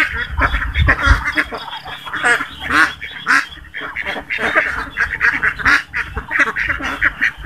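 A large flock of domestic ducks calling together, many short calls overlapping without a break.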